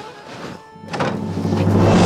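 Dramatic soundtrack music: a sudden crash-like hit about a second in, then low held notes swelling quickly to full loudness as a suspense sting.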